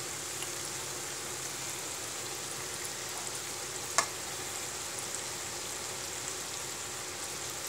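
Gulgule fritters of wheat flour and jaggery deep-frying in oil in a kadhai, a steady sizzle as a slotted metal spoon turns them. About four seconds in, one sharp clink of the spoon against the pan.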